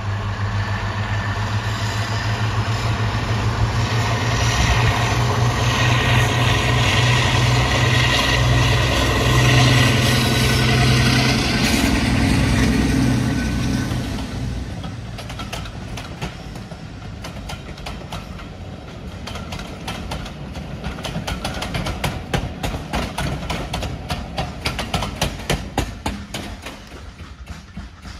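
Class 52 'Western' diesel-hydraulic locomotive D1015 working hard under power with its twin Maybach diesel engines, a loud low drone. About fourteen seconds in the engine sound fades as the coaches roll by, their wheels clicking in a steady rhythm over the rail joints, loudest near the end.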